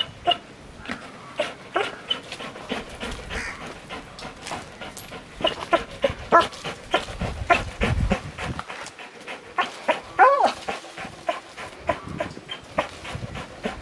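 Rottweiler working a spring pole, gripping and tugging at the hanging toy, panting with short whines, one longer whine about ten seconds in. Many short knocks and scuffs from the dog's paws and the toy, with a low thud near the middle.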